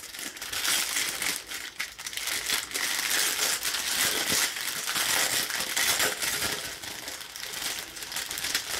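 A clear plastic bag of sealed diamond-painting drill packets crinkling steadily as it is handled and turned over.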